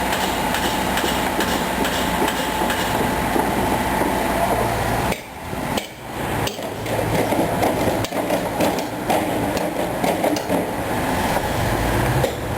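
Liebherr 904 excavator at work: engine running with a dense, rapid metallic clatter and knocking, which eases briefly about five seconds in.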